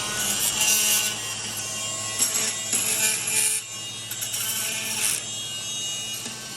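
Power tool sanding paint off around rivets on a bus's metal roof: a steady high motor whine with repeated rasping scrapes as the abrasive works the paint.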